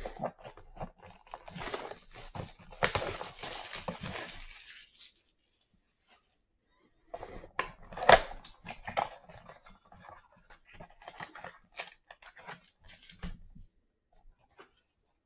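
Plastic shrink wrap being torn and crinkled off a 2020 Donruss Optic Football blaster box for about five seconds. After a short pause comes cardboard rustling and clicking as the box is opened, with one sharp snap about eight seconds in.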